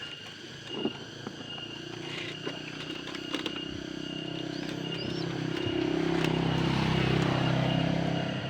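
A motor vehicle engine, most likely a motorcycle, growing louder and then easing off as it passes, with a few light clicks in the first few seconds.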